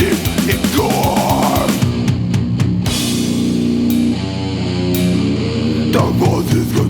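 Death metal band playing an instrumental passage. The drums beat fast at first; about two seconds in, the distorted guitars hold low chords with sparse drum hits, and the fast drumming comes back near the end.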